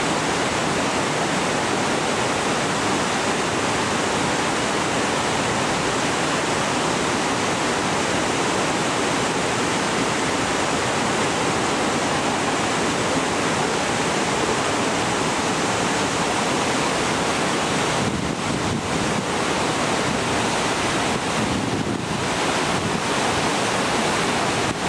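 Steady rushing of flowing water, an even wash of noise that holds at one level throughout, with a few slight dips near the end.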